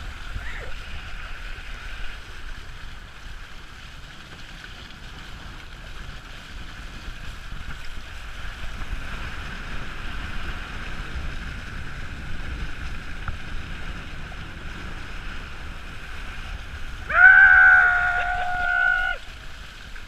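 Water rushing and hissing past the hull and foils of a Windrider Rave hydrofoil trimaran at speed, with a steady high whistle in it. About 17 seconds in, a crew member lets out a loud held shout lasting about two seconds.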